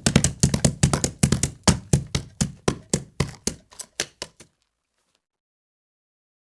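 A quick series of sharp taps or knocks that gradually slows, from about five a second to about two a second, and stops about four and a half seconds in.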